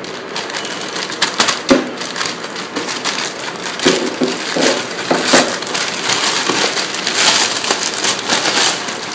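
Plastic courier mailer bag crinkling and crackling as it is slit with a pocketknife and torn open by hand. A cardboard box is then pulled out of it.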